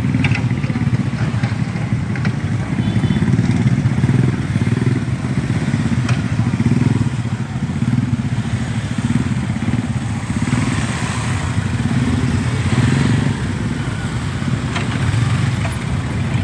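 A vehicle engine running steadily at low revs, its low drone pulsing slightly, with a few faint clicks.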